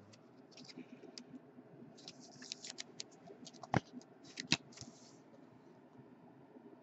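A trading card being handled and slid into a rigid clear plastic top-loader: light scraping and rustling of card and plastic, with two sharp clicks in the middle.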